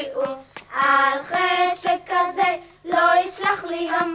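Children singing a song, holding sustained notes between short breaths, over a light, even beat.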